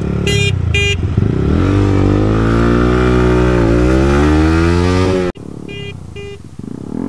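Three short beeps, then a Bajaj Pulsar NS400Z's single-cylinder engine accelerating hard from launch. Its pitch climbs, dips once at an upshift and climbs again, then cuts off abruptly. Two more short beeps follow over a quieter engine.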